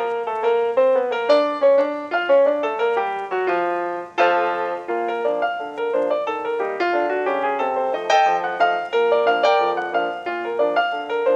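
Piano music: a flowing melody of many quick notes, each struck and fading.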